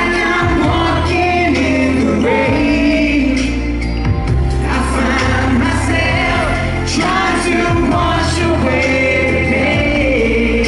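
Live pop music: male vocals singing into microphones over instrumental backing, amplified through a concert PA.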